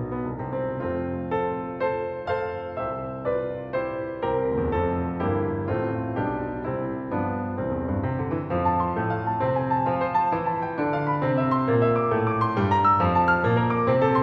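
Background piano music, a steady flow of notes that grows a little louder in the second half.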